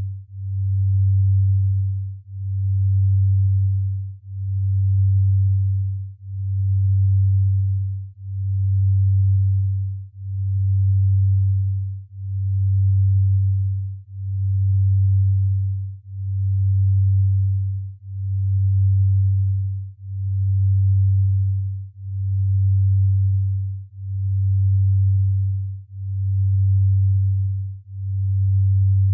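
A low pure sine tone, swelling and fading in loudness about once every two seconds. It is a binaural-beat brainwave-entrainment tone pulsing in the slow delta range used to induce sleep.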